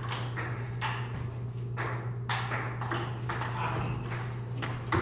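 Table tennis rally: the ball clicking sharply off paddles and the table in an even back-and-forth run, about two clicks a second, over a steady low hum.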